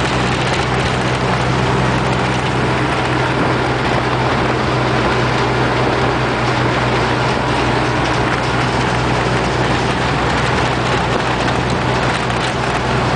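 1949 American LaFrance aerial ladder truck's engine running steadily at cruising speed, heard from the cab, with a constant low hum under loud wind and road noise.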